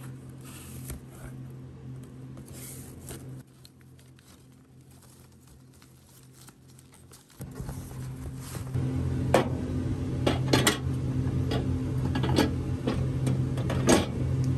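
Cardboard packaging being opened and handled, then a glass microwave turntable plate knocking and clinking as it is lifted out and set in place, giving sharp clicks in the second half. A steady low hum runs underneath.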